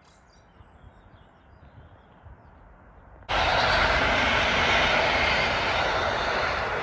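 Quiet trackside background, then about three seconds in a loud, steady rushing noise of a train passing close by cuts in abruptly and continues.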